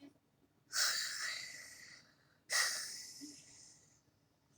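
An anime girl's voiced snoring: two breathy snores, each starting sharply and fading away over about a second and a half, the first about a second in.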